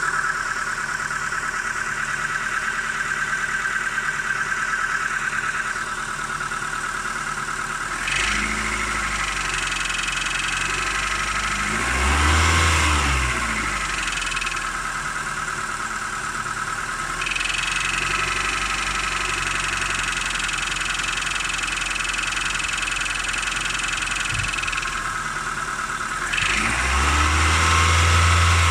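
Engine running with a knock from its lower part that shows at 1100–1500 rpm. It steps up in speed about eight seconds in, and is revved up and back down briefly twice: about twelve seconds in and near the end.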